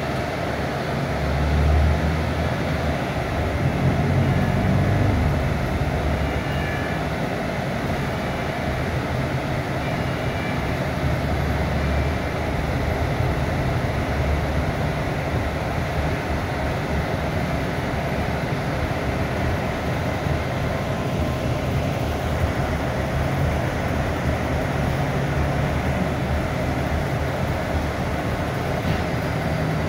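Mercedes-Benz O500U city bus's rear-mounted diesel engine running as the bus drives, heard inside the cabin along with road noise. The engine drone is louder and deeper for a few seconds near the start, then settles to a steady level.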